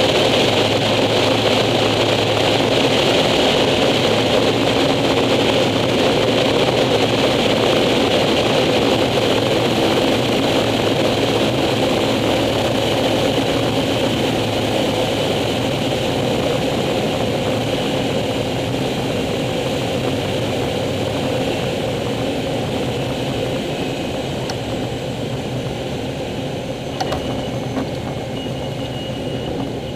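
Air Tractor 402B's PT6A turboprop engine and propeller running steadily at landing power, a whine over a drone and wind rush, getting gradually quieter as the plane slows on the runway. A single short knock near the end.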